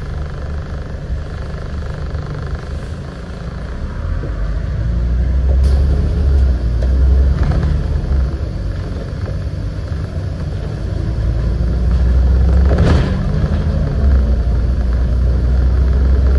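Scania N94UD double-decker bus engine running under way, a deep drone that swells louder and eases off several times. A few sharp knocks or rattles sound over it.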